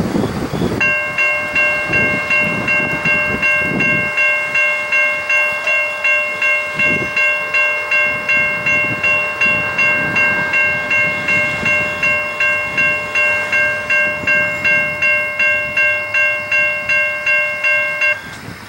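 Railroad grade crossing bell ringing, about two strikes a second, each ring fading before the next, then cutting off suddenly near the end. Low rumble from the departing train fades under it during the first few seconds.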